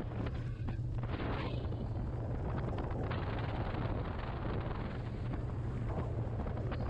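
A boat's motor running steadily underway, a constant low hum, with heavy wind buffeting on the microphone.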